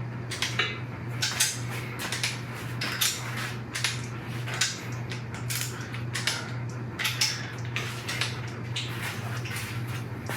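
Repeated sharp metallic clicks and clinks of hand tools working bolts on a 5.3 LS V8 engine, likely a click-type torque wrench rechecking bolt torque. They come irregularly, about one or two a second, over a steady low hum.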